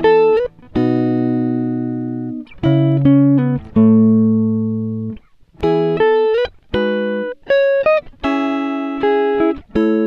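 Background music on a plucked guitar: single notes held and fading one after another, several ending in a small upward slide.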